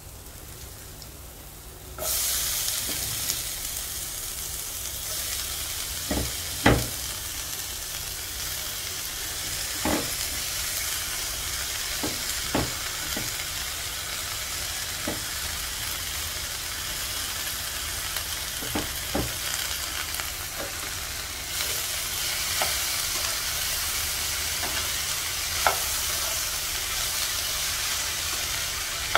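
Food sizzling in a hot frying pan. The sizzle jumps up suddenly about two seconds in, as shredded cabbage, Chinese cabbage and carrot go into the pan, and then carries on as they are stir-fried. A few sharp knocks of the spatula against the pan come through it.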